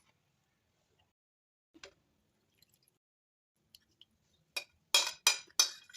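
Kitchen utensil clinking against a bowl: a few faint taps, then a quick run of sharp, ringing clinks, about three a second, in the last second and a half.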